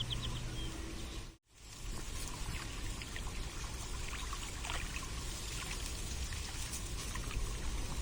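Water trickling and dripping, with many small splashes. About a second and a half in, the sound drops out briefly and comes back. Before the dropout a low steady hum lies under it.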